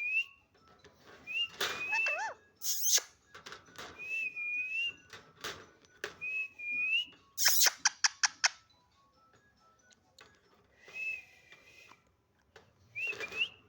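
Pet parrot whistling a short wavy whistle again and again, with a few loud shrill calls and a quick run of sharp clicks partway through.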